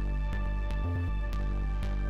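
Instrumental background music: sustained high notes over a low bass line, with light percussive ticks.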